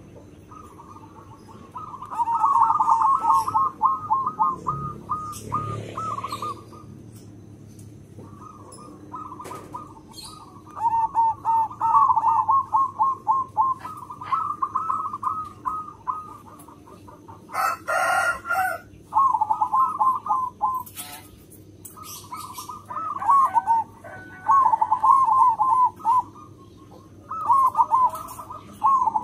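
Zebra dove (perkutut) singing in repeated bouts of a few seconds each, every bout a quick rolling run of clipped coos. A short, harsher burst of sound breaks in about two-thirds of the way through.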